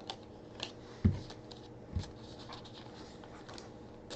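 Trading cards and pack handled on a tabletop: light ticks and rustles, with two soft thumps about a second and two seconds in as cards are set down.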